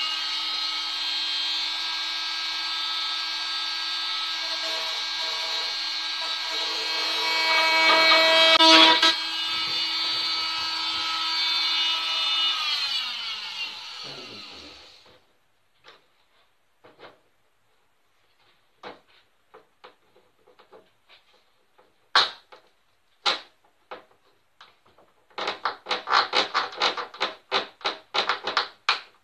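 Corded power drill boring into the wooden tool box to cut a leg mortise, running steadily for about twelve seconds and then spinning down with a falling whine. After it come scattered knocks and, near the end, a quick run of knocking as a wooden leg is worked into the drilled hole.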